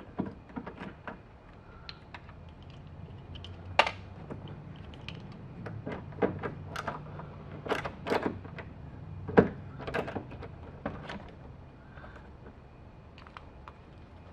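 Phillips screws being backed out of a sun visor bracket with a screwdriver: scattered light clicks and small knocks, a few sharper ones in the middle.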